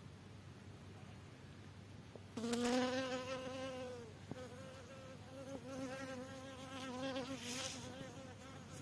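A flying insect buzzing close by in two spells: first for about a second and a half starting about two seconds in, then again for about three seconds from five seconds in, its pitch wavering slightly as it moves.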